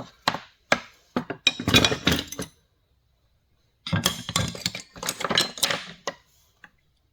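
Old steel hand tools, chisels, carving gouges and lathe tools, clinking and clattering against one another as they are handled and set down. Two bursts of rattling separated by a short pause, then a single click near the end.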